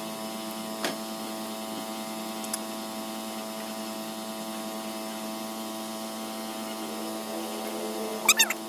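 A steady hum at one constant pitch, rich in overtones, like a machine or electrical hum. It carries a couple of faint knocks, and a few brief high chirps come near the end.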